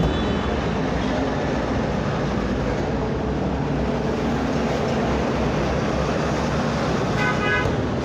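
Steady road-traffic noise, a continuous rumble and hiss with faint vehicle horns in it.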